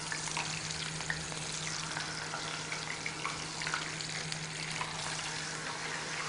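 Thin plantain strips frying in hot oil in a pan: a steady sizzle with scattered crackles and pops as more strips are dropped in.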